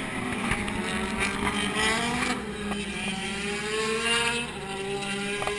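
A race car engine on the circuit accelerating hard, its pitch dropping at a gear change about two seconds in and then climbing steadily again.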